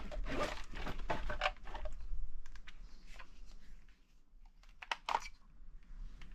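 Handling noise of hands working with a battery and wires: a quick run of small clicks and taps with some rustling in the first two seconds, then scattered single clicks.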